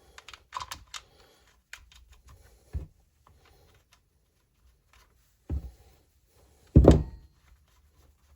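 Clicks and a few dull clunks of a chainsaw's bar, chain and side cover being handled and fitted, the loudest clunk about seven seconds in.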